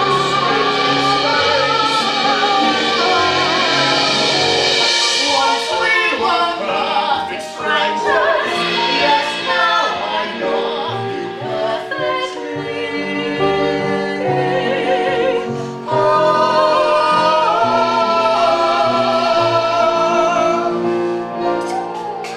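Two singers in a stage musical singing a love-song duet over instrumental accompaniment, ending on long held notes with vibrato.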